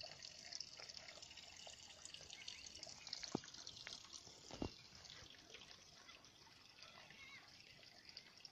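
Faint trickle of water from a spring, a fine patter of small drips. Two brief knocks come about three and a half and four and a half seconds in.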